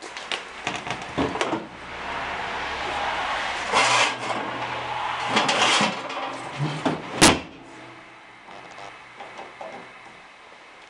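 Metal baking trays and oven door of an old Karpát 5 cooker being handled: a few seconds of scraping and rattling sheet metal ending in one sharp clank, followed by faint light clicks as the control knobs are turned.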